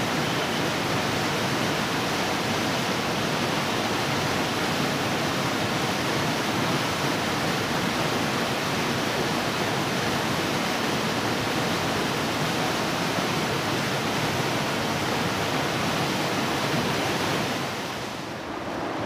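Small waterfall rushing steadily into a river pool. Near the end the rush becomes duller and briefly quieter.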